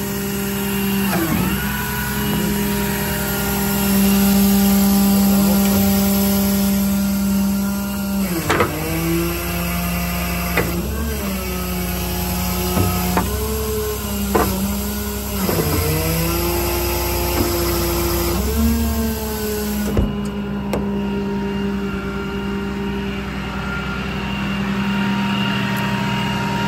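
A service truck's 6.7 Cummins diesel runs its hydraulic system with a steady pitched whine. The whine dips in pitch and recovers about six times as the engine and pump take up load from the hydraulic functions, then holds steady for the last few seconds.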